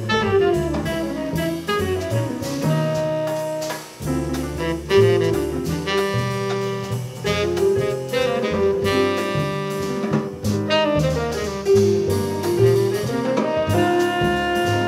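Live jazz quartet playing: tenor saxophone holding long melody notes over acoustic piano, upright double bass and drum kit.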